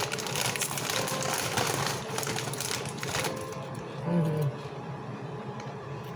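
Close-up chewing and crunching of potato chips, a dense run of crisp crackles over the first three seconds, then quieter chewing with a short hum about four seconds in.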